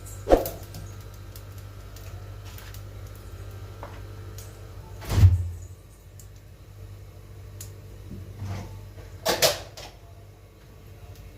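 A few separate knocks and clunks, as of things being handled and set down: one right at the start, the loudest with a dull thud about five seconds in, and a quick double knock near the end. A low steady hum runs underneath.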